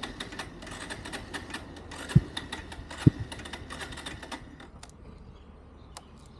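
Motorcycle that won't start: quick, irregular clicking from the starter for about four seconds without the engine catching, with two dull thumps, then fading out.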